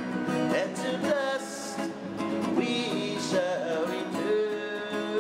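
A song: a voice singing with a wavering, vibrato-like pitch over guitar.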